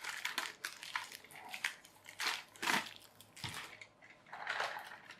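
Irregular crinkling and rustling as something is handled close to the microphone, in short crackles and longer rustles.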